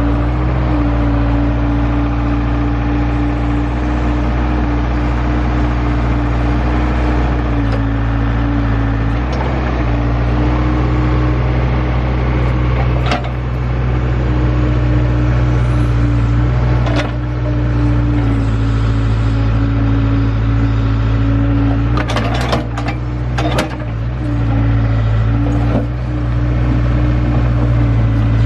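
Engine of heavy digging equipment running steadily under load, with a few sharp metallic knocks and a short cluster of clanks about two-thirds of the way through.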